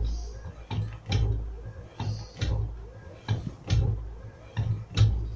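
Homemade 12-volt electric hammer press striking over and over as copper strip is fed through it. Each stroke is a dull knock with a sharp click, coming roughly every half second to a second.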